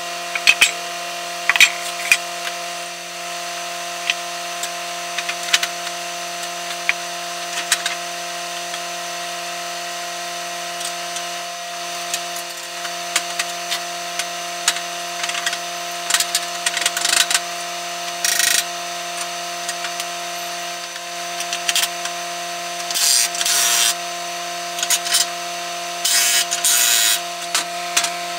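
Tools at work on a steel snowplow blade while wing extensions are bolted on: scattered metal clicks and knocks, and several power-tool bursts of about a second each, over a steady hum.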